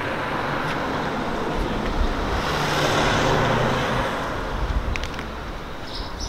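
A car driving past, its engine and tyre noise swelling to a peak about three seconds in and then fading.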